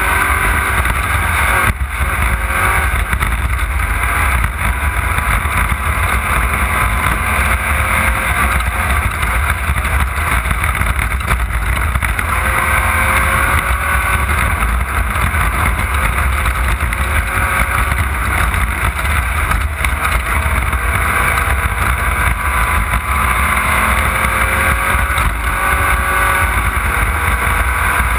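Off-road race car's engine running hard, its pitch climbing and dropping back again and again with throttle and gear changes, over a constant heavy low rumble from the moving car.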